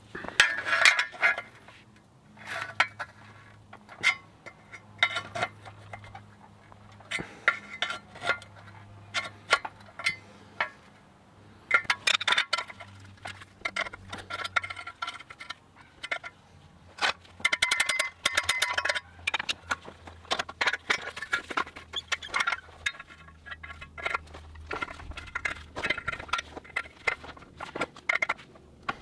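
Steel wrenches clinking and scraping against the steel spiral flighting of an auger as they are clamped on and levered to bend the flute back into shape. The clinks come in irregular clusters, each with a short metallic ring.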